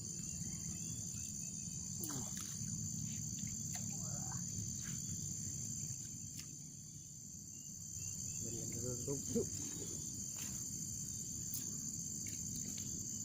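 A steady, high insect chorus trilling without a break, with a short low sound rising above it about nine seconds in.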